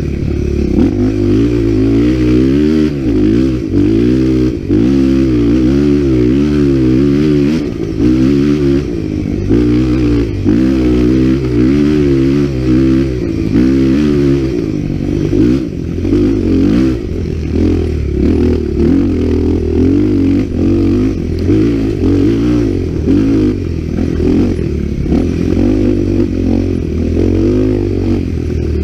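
Trail dirt bike engine heard from on the bike, its pitch rising and falling about once a second as the throttle is worked over rough ground, then pulling more steadily about halfway through.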